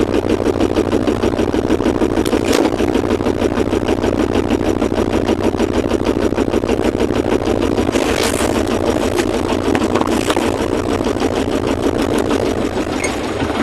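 A sailboat's engine running steadily with a fast, even chugging. A couple of brief rustles come about eight and ten seconds in.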